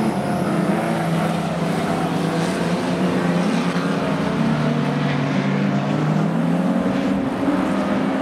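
Several speedway stockcar engines racing together, their overlapping notes rising and falling in pitch as the cars speed up and back off around the dirt oval.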